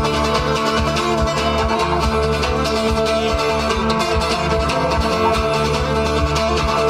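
Live music: rapid plucked acoustic guitar over a steady low drone.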